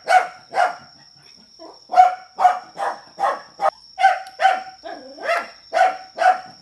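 A dog barking repeatedly, about two barks a second, with a pause of about a second shortly after the start.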